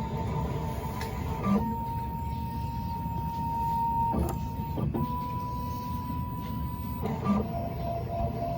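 Miracle A9 key cutting machine's motors whining as the probes move through the automatic calibration measurement. The whine holds a steady pitch, then shifts pitch or stops and starts again a few times, with a small click at each change.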